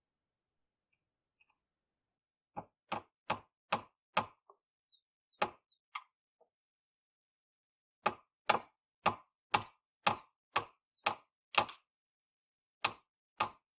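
Hammer nailing a wooden board onto the roof edge of a log hut: a quick run of about five blows, two single blows, then a steady run of about eight blows at two a second and three more near the end.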